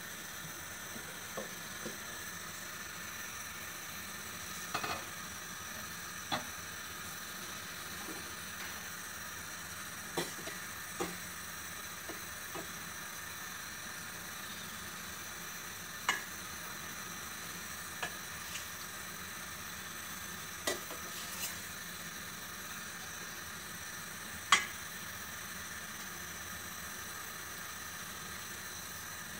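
A metal ladle stirring in a stainless steel pot of soaked sea cucumbers, clinking and scraping against the pot now and then, over a steady hiss. The clinks are irregular, and the loudest comes about three-quarters of the way through.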